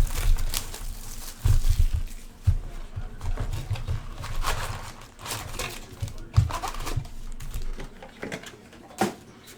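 Irregular light clicks, taps and crinkling of hands handling things at a desk, with a few dull low thumps.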